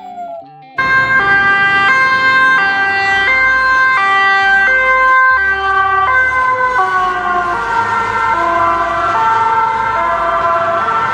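Japanese-style two-tone "pee-poh" ambulance siren, switching between a high and a low tone about every two-thirds of a second. In the second half both tones sag lower while it keeps alternating, and it cuts off suddenly near the end.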